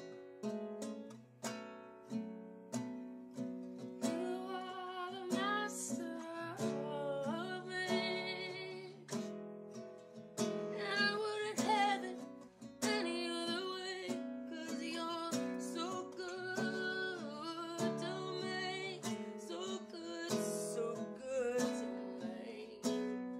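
Acoustic guitar strummed in a steady rhythm, with a woman's singing voice joining about four seconds in and carrying on over the guitar until near the end.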